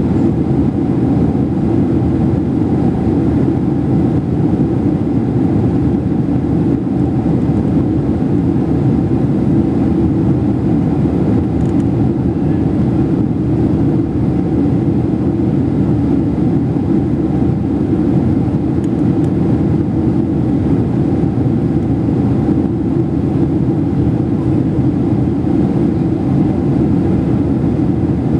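Airliner cabin noise on approach: a steady, deep drone of engines and rushing air heard from inside the cabin at a window seat, with a faint even hum on top.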